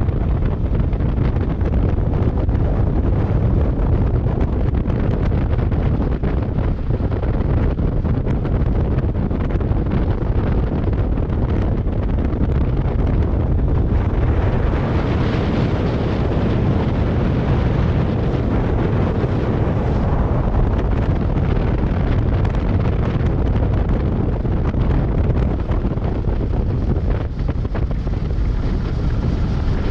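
Wind rushing over the microphone of a moving Kawasaki Versys 650 motorcycle, over a steady low rumble from the bike. The wind hiss grows louder about halfway through, then eases.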